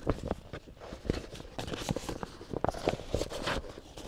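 Irregular light knocks and scuffing footsteps.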